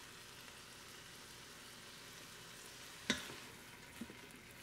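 Faint steady sizzling of diced vegetables and sauce frying in the hot inner pot of a Ninja Foodi, with a silicone spatula stirring. A single sharp knock about three seconds in and a lighter tap about a second later.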